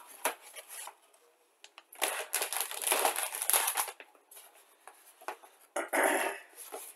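Plastic bags holding a model kit's sprues crinkling as they are handled and lifted in a cardboard box, in bursts: a short one at the start, a longer one of about two seconds from two seconds in, and another near the end.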